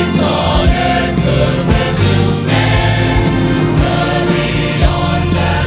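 Church choir singing a Christmas song with band accompaniment: a steady bass and a regular drum beat.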